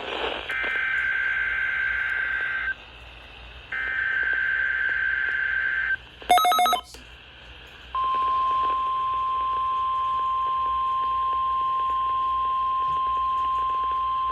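NOAA Weather Radio emergency alert signal from a weather radio: two bursts of warbling digital SAME header data, a brief burst of stacked beeps about six seconds in, then the steady 1050 Hz warning alarm tone starting about eight seconds in.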